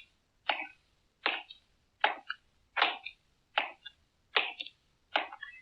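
A cartoon sound effect: seven short, sharp strokes at an even pace, about one every three-quarters of a second, each followed by a faint small tick.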